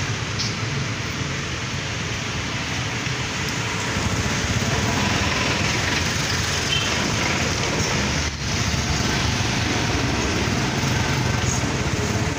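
Honda trail motorcycle's engine running steadily at a fast idle after months of disuse, a little louder from about four seconds in.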